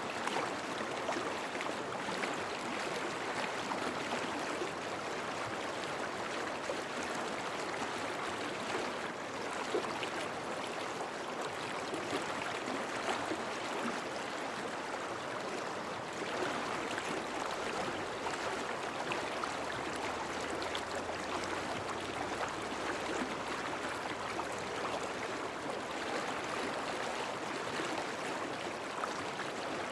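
A river running steadily, an even rush of flowing water.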